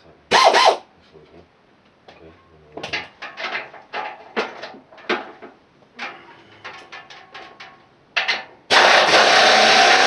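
A pneumatic air tool driving a socket gives a short loud burst about half a second in. A string of short clicks and knocks follows, and near the end the tool starts running steadily with a loud hiss and a faint whine.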